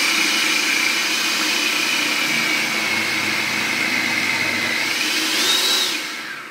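Food processor motor running with its shredding disc grating potatoes pushed down the feed tube: a steady whine that rises in pitch about five seconds in, then winds down.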